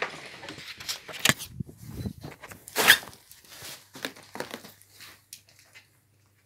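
Rustling, knocking and scraping handling noise from a phone being carried and moved about, a string of irregular clicks with the loudest about three seconds in, dying away near the end.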